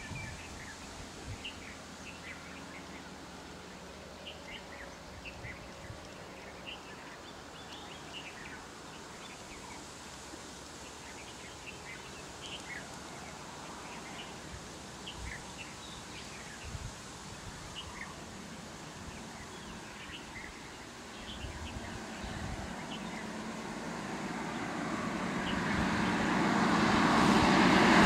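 Scattered short bird chirps over a steady outdoor hiss, then a road vehicle approaching, its noise growing steadily louder through the last six or seven seconds.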